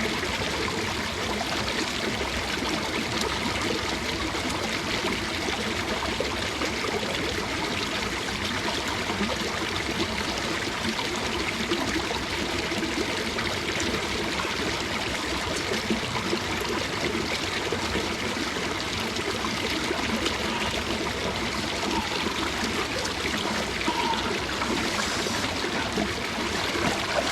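Running water flowing steadily, an even rush with no pauses.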